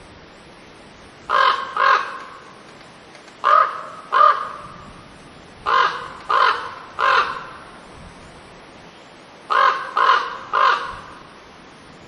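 A raven calling: ten short, hoarse caws in four bursts of two, two, three and three, each caw fading off with a short tail.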